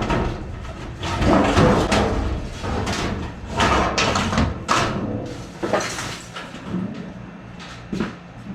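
Irregular metal clattering, scraping and thumps as an old furnace and its evaporator coil are pulled apart by hand.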